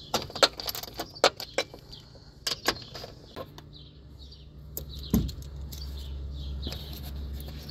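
Metal clicks and clinks of a socket wrench on an extension working the 10 mm bolts of a pickup's inner fender splash shield, irregular and sharp over the first few seconds, with one louder knock about five seconds in. A low steady hum comes up in the second half, and birds chirp throughout.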